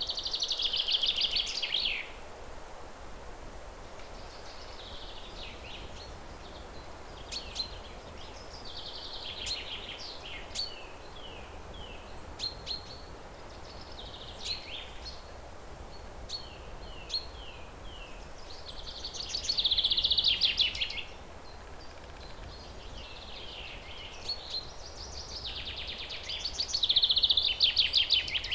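Songbirds singing over a steady background hiss of outdoor ambience. Loud, rapid trilled phrases come at the start, about twenty seconds in and near the end, with shorter chirps and quick down-slurred notes in between.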